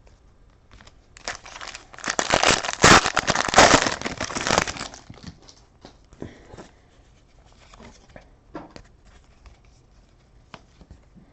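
A foil trading-card pack being torn open and crinkled, loudest for a few seconds about a second in, followed by faint rustles and clicks of cards being handled.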